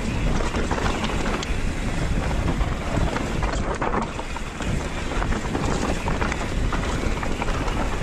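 Wind rushing over a handlebar-mounted action camera's microphone while a mountain bike rolls fast down a dirt singletrack, with tyre noise and a steady run of small rattles and clicks from the bike over the rough ground.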